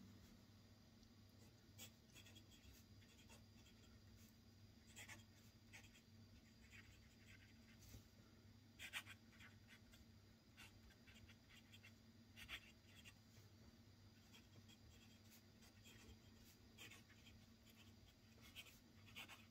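Faber-Castell Ondoro fountain pen's medium steel nib writing on a Rhodia paper pad: faint scratches of short, irregular pen strokes as words are written out by hand.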